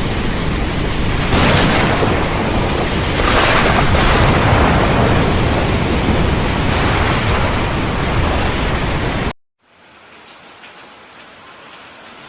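Heavy rain with thunder rumbling, swelling about a second in and again around three to four seconds in. Near the end it cuts off abruptly, and a much quieter rain recording begins.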